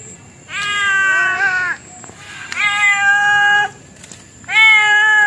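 A domestic cat meowing: three long, drawn-out meows about a second each, with short pauses between them.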